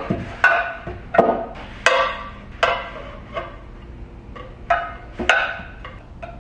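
Cookware pan lids knocking and clinking against each other and the cabinet door as they are slotted into a door-mounted lid organizer: about ten sharp knocks, each with a brief ring.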